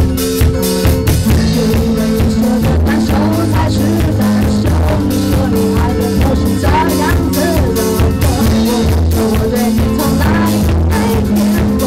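A rock band playing at full volume: a steady drum kit beat under sustained bass and guitar notes, with a wavering melody line on top.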